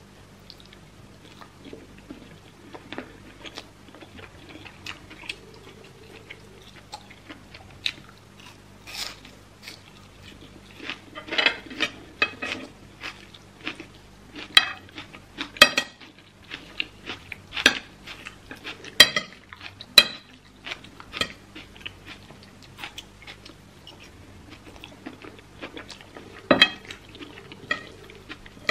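Close-miked eating: wet chewing of rice and beef, with a metal spoon scraping and clinking against a ceramic plate. Sharp clicks come in scattered clusters, busiest around the middle.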